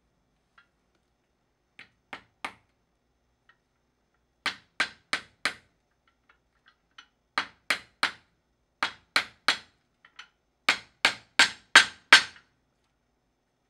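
Small cobbler's hammer tapping a new pin lift into the end of a woman's high heel, in short runs of three to five quick taps. The last run is the hardest.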